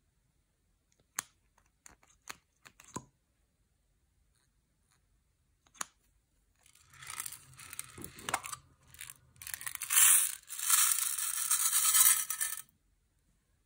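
Small plastic beads rattling and pattering as they are poured out of a tube into a glass dish, building to a dense shower for a few seconds before stopping. A few light clicks come before it.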